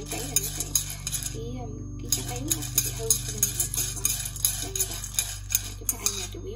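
Metal tongs scraping and clinking against a stainless steel pan as pumpkin seeds are stirred while dry-roasting, with the seeds rattling. Quick clinks, several a second, with a short pause about one and a half seconds in.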